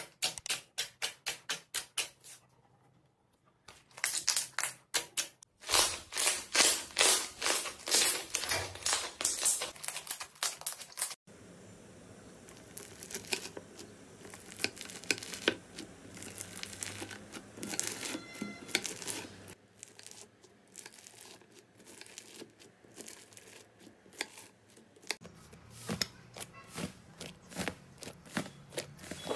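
Slime being pressed, poked and cut by hand, giving sharp wet pops and clicks, about four a second at first. After a short lull comes a louder, denser run of pops. From about eleven seconds in it drops to fainter crackling and crinkling, with another run of pops near the end.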